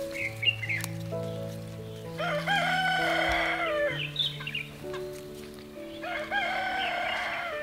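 A rooster crows twice, each crow about one and a half to two seconds long, over soft background music of long held notes.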